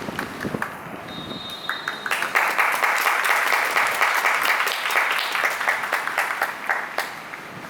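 Stadium crowd clapping, swelling up about two seconds in and dying away near the end, just after a short high steady tone.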